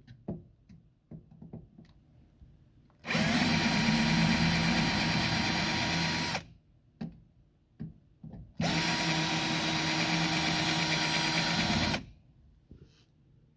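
Power drill running in two steady runs of about three seconds each, drilling out a fastener that holds the car door's window regulator, with light knocks before, between and after.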